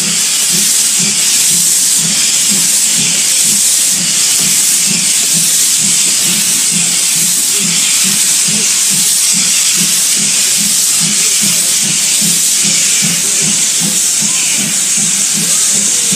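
Steam locomotive hissing loudly and steadily as steam vents out low alongside, with a regular low pulse about twice a second underneath.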